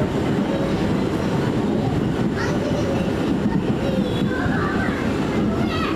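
R179 subway car running at speed, heard from inside the car: a steady rumble of wheels on rails.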